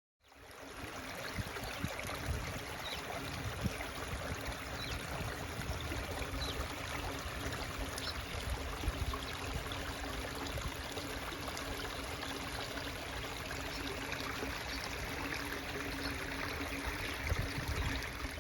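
Stream water running steadily, a continuous rushing noise with a low rumble underneath.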